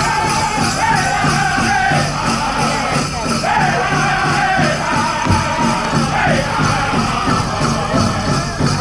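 Powwow drum group singing a chicken dance song over a steady beat on a big drum, with the jingling of the dancers' bells.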